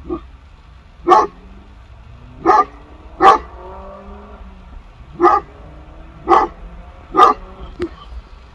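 Kangal shepherd dog barking in alert: six loud barks at uneven spacing, one to two seconds apart, with a couple of quieter ones near the start and end.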